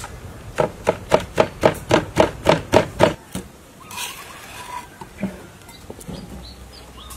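Pestle pounding garlic, chili, salt and sugar into a paste in a clay mortar: about ten quick, even strikes, about four a second, that stop about three seconds in. Softer scraping and light knocks follow as a spoon stirs the paste in a ceramic bowl.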